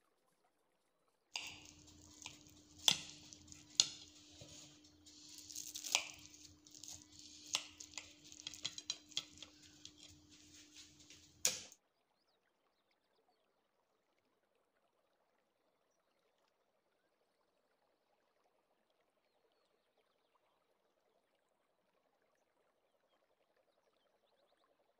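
A metal cake server clinking and scraping against a cut-glass plate as a slice of baked tajine is cut and lifted. A steady low hum and hiss run under it, with a few sharp clinks. It stops about twelve seconds in, and near silence follows.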